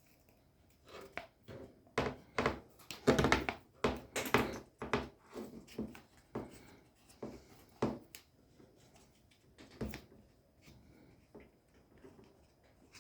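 Irregular knocks and rustling of hands handling objects at close range, densest and loudest about two to five seconds in, then sparser.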